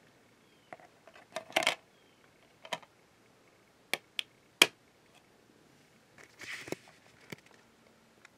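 Sharp plastic clicks and taps as DVD discs are handled and a disc is pressed onto the snap-in centre hub of a plastic DVD case, with a short rustle about two-thirds of the way through.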